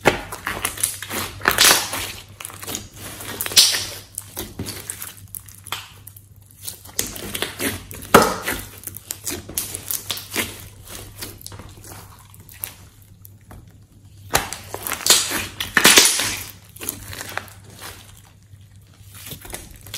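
Hands squeezing, stretching and kneading a large mass of glossy slime, giving irregular clusters of wet crackles with short quieter pauses between them.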